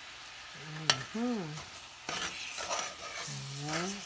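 Sliced peaches sizzling and bubbling in a sugary syrup in a saucepan while a spoon stirs them. The spoon clinks sharply on the pan about a second in.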